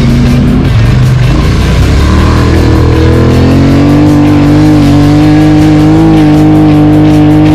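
ATV engine running, then revving up over about two seconds and held at high revs.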